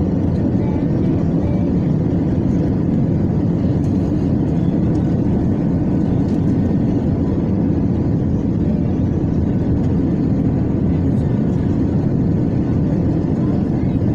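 Steady drone of a jet airliner's engines and airflow heard inside the passenger cabin from a seat over the wing, during the descent to land. A deep, even noise with no changes.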